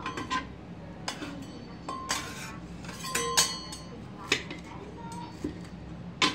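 Two metal spatulas clinking against each other and scraping on a steel teppan griddle as an okonomiyaki is cut up. The sharp, ringing clinks come about once a second, the loudest cluster about three seconds in.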